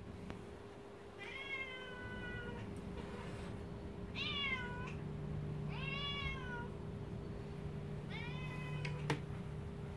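Siamese cat meowing four times in long, drawn-out meows, some rising then falling in pitch, a cat complaining at dogs crowding her. A sharp click near the end, and a steady low hum throughout.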